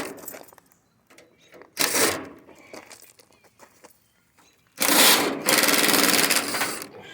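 Cordless impact driver with a 5/16 hex driver backing out sheet-metal screws from an air conditioner cabinet: a short burst about two seconds in, then a longer rapid hammering run of about two seconds near the end. The screws are held fast in old, rusted metal.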